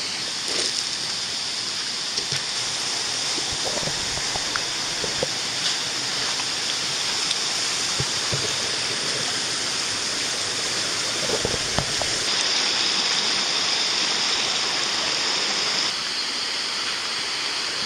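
Shallow rocky river rushing over stones: a steady water noise, with a few faint splashes and knocks from wading through it.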